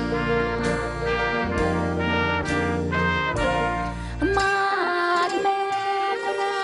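Dance band playing, saxophone over bass and brass chord hits. About four seconds in it gives way to a Thai traditional passage on a ranat ek xylophone, with long held melody notes that slide in pitch.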